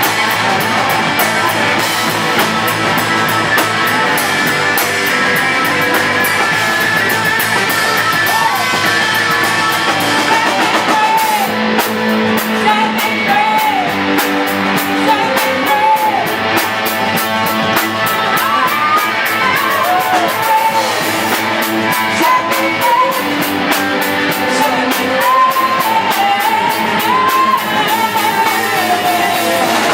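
Live rock band playing loud and steady: electric guitar and drum kit with cymbals, and a wavering sung or bent-note melody line over the top.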